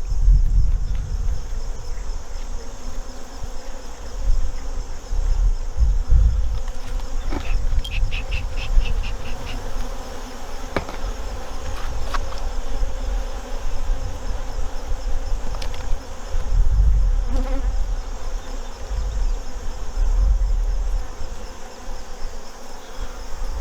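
Honey bees buzzing steadily around an open hive, over a low irregular rumble. There is a short run of rapid clicks about eight seconds in.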